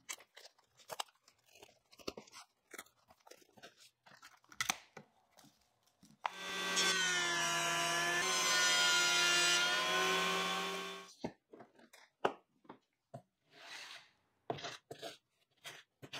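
Plastic vacuum bag rustling and crinkling as it is handled. Then a Carba-Tec benchtop thickness planer runs for about five seconds, a steady motor whine whose pitch sags slightly soon after it starts. Short scrapes and knocks of hand work on a board at the workbench follow.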